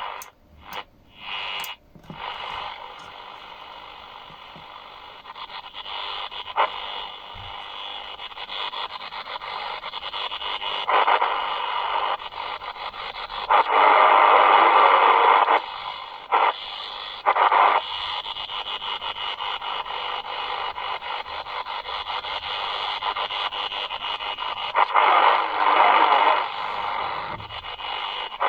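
Shortwave reception on an XHDATA D-219 pocket radio heard through its small speaker: a steady hiss of static with louder patches of signal that swell and fade several times.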